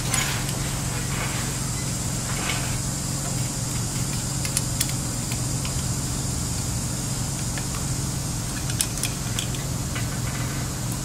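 Steady low hum and hiss, with a few short, light clicks of a hand tool tightening the bolts of a scooter's SCS compression clamp, in pairs about halfway through and again near the end.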